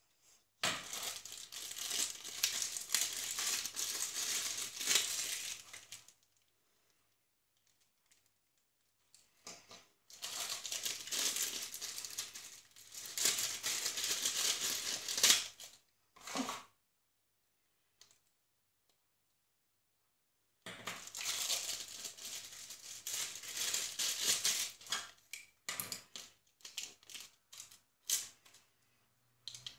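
Clear plastic accessory bags crinkling and rustling as they are handled and opened, in three spells of several seconds each with quiet between. A few sharp clicks near the end.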